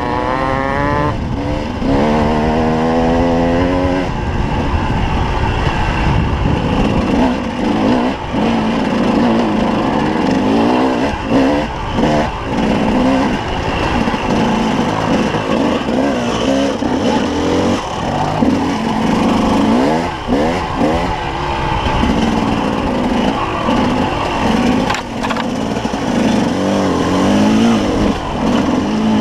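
Enduro dirt bike engine heard close up from on the bike. It revs up through the gears in the first few seconds, then keeps rising and falling with the throttle over rough track.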